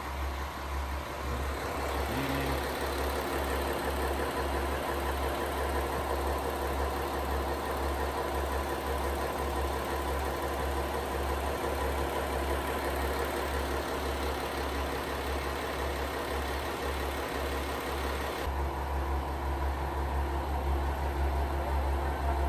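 Diesel engine of a JR Kyushu KiHa 47-series railcar idling at a standstill: a steady low throb with an even pulse.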